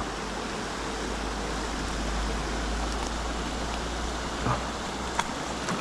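Mountain stream water rushing steadily, with a couple of faint brief clicks late on.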